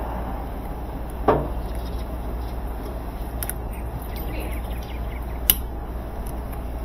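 Pliers working a hose clamp onto a washing machine's corrugated drain hose: a few sharp clicks, the loudest about five and a half seconds in, over a steady low hum.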